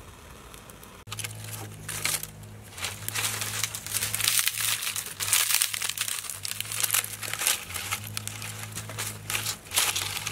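Dry kindling catching fire: thin dry stalks and bark crackling densely as the flames take hold, starting about a second in. A steady low hum runs underneath.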